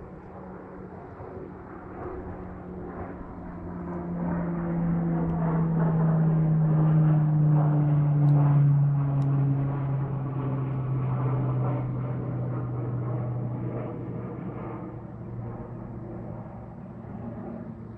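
An aircraft flying over: a steady engine drone swells to its loudest about seven to nine seconds in, then fades, its pitch sinking slowly as it passes.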